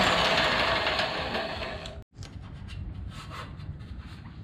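A handheld power driver running for about two seconds, its pitch sagging slightly as it spins off the fasteners holding the casters to the steel lift frame. It cuts off abruptly, and quieter clicks and rubbing of hands and parts on the metal frame follow.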